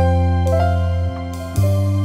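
Background keyboard music: a melody of held notes over a deep bass note that shifts to a new note toward the end.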